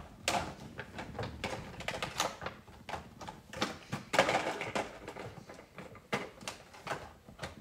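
Plastic toys clattering in a plastic bin as they are rummaged through by hand: an irregular run of light clicks and knocks.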